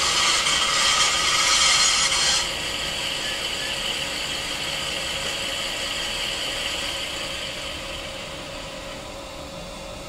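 ESU sound decoder in an HO-scale V60 diesel shunter model playing a diesel engine sound through its small speaker. A hiss sits on top of the engine and cuts off suddenly about two and a half seconds in. The engine sound then runs steadily and fades out near the end.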